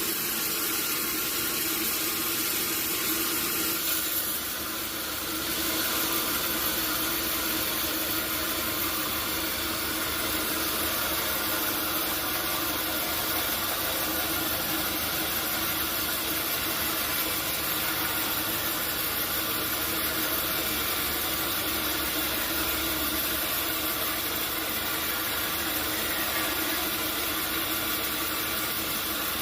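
Sawmill machinery running steadily, a continuous mechanical noise with a few held tones and a short drop in level about four seconds in.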